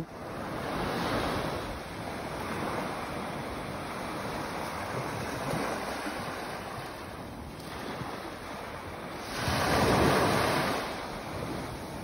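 Small sea waves breaking and washing up over a fine-sand beach: a steady hiss of surf, with a louder wave surging in about ten seconds in.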